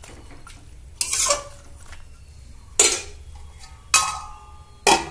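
Metal spatula and cookware clanking against a steel kadai as boiling greens are stirred and covered: four sharp clanks spread over a few seconds, the later ones leaving a brief metallic ring.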